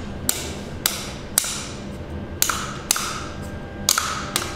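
Seven sharp, irregularly spaced knocks as the protective mesh in a mass air flow sensor housing is struck to knock it out; several strikes leave a short ringing tone.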